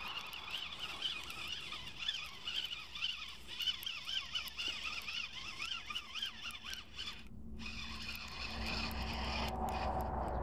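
A fishing reel being cranked to wind in a heavy, strongly resisting load, its gears whining up and down in pitch with each turn of the handle. About seven seconds in the whine stops and a louder, steady low rumble takes over.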